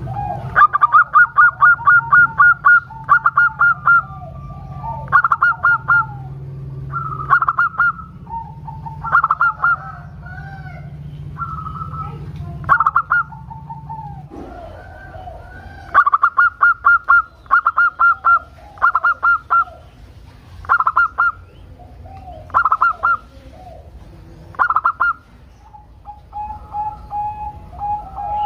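Zebra dove singing: repeated short runs of rapid staccato cooing notes, a run every second or two, with softer, lower, curved coos between them.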